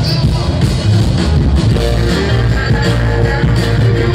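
Live Philly soul band playing loudly: electric guitar over bass and drum kit.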